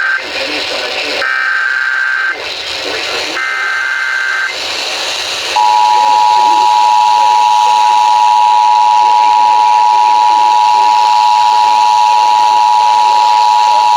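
Emergency Alert System activation: the end of one SAME header burst and then two more short bursts of digital data tones, each about a second long, over background hiss. After that comes the steady two-tone EAS attention signal, which sounds for about eight seconds and cuts off sharply. The alert opens a National Weather Service severe thunderstorm warning.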